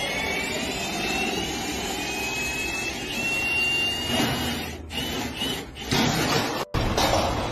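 Cordless drill turning a scissor jack's crank screw, its motor whining steadily and rising slightly in pitch over the first few seconds. Near the end it stops and starts in short runs.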